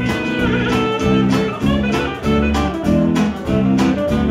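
Live blues-Americana band playing an instrumental break: saxophone lead over acoustic guitar, electric bass and drums keeping a steady beat.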